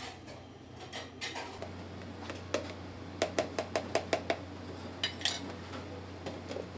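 Kitchen utensils clinking against dishes and containers: scattered knocks, then a quick run of about seven light taps a little past three seconds in, and a couple more around five seconds. A steady low hum runs underneath.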